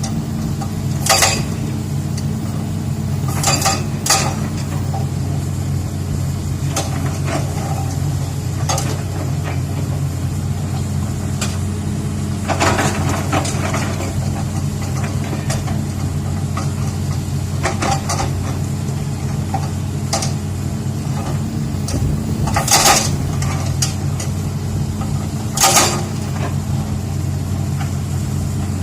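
Excavator's diesel engine running steadily, with a few sharp metallic clanks and knocks at irregular intervals, the loudest two near the end.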